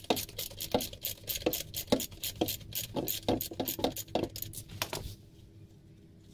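Quick, irregular metal clicks of a wrench working the 19 mm oil drain plug loose on a diesel engine's sump, stopping about five seconds in.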